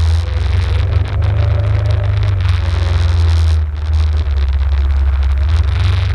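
Arctic Cat ATV engine running steadily on the move, with wind buffeting the microphone and a faint steady whine; the loudness dips briefly about a second in and again near four seconds.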